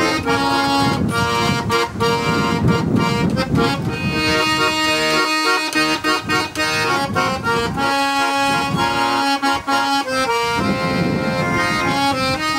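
Accordion playing an instrumental passage: sustained melody notes over chords, with regular short accents.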